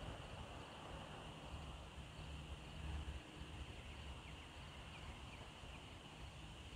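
Faint outdoor ambience: a steady high-pitched insect chorus, with a low rumble underneath and a few short, faint chirps about four to five seconds in.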